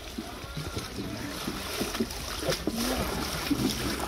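Wooden rowboats being rowed along a canal: oars dipping and water splashing and washing against the hulls, with scattered small knocks.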